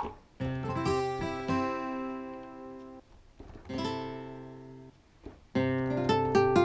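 Acoustic guitar voice of a Yamaha MX49 keyboard synthesizer played as chords. Two chords ring out and fade, then a louder run of quick repeated chord strikes near the end.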